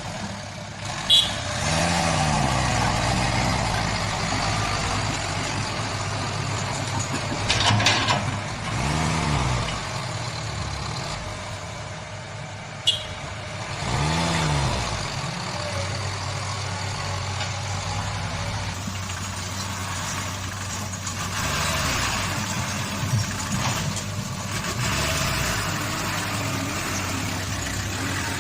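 Old dump truck's engine running, revved up and let back down about three times, with a few short sharp knocks in between.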